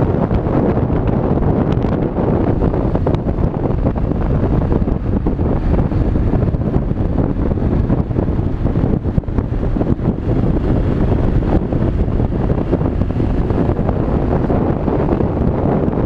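Yamaha XT600's single-cylinder four-stroke engine running steadily under way, mixed with heavy wind noise on the microphone.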